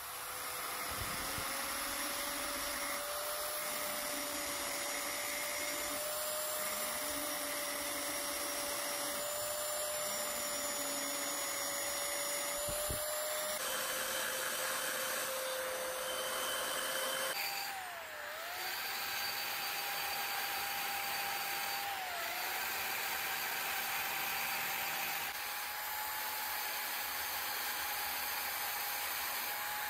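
Handheld rotary tool with a ball-shaped burr spinning at high speed and grinding dimples into a steel ax blade: a steady whine with a grinding hiss. Its pitch jumps abruptly a couple of times and dips briefly twice.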